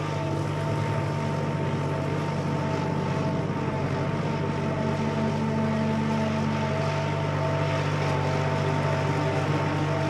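Diesel farm tractor engine running steadily under load, with a steady whine over its low drone, as it pulls a disc harrow through the soil.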